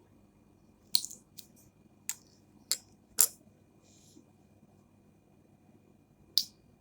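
A series of short, sharp pops, the 'satisfying pop' sound being demonstrated: five in the first three and a half seconds, the loudest about three seconds in, and one more after a pause of about three seconds.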